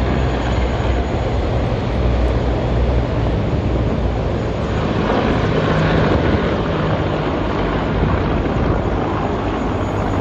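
A formation of military helicopters flying over, their rotors and turbine engines making a loud, steady noise. A low drone is strongest for the first few seconds and then gives way to a more even rushing sound.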